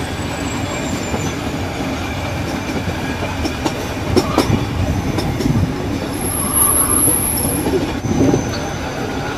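Nilgiri Mountain Railway metre-gauge train running along the track: a steady rumble and rattle of the carriage with scattered wheel clicks, and a brief high-pitched wheel squeal about two-thirds of the way through.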